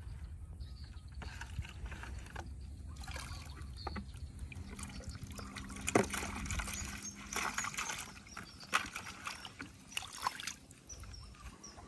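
Water and small fish being poured from a plastic bucket into a pond, splashing and trickling, with a sharp knock about halfway through.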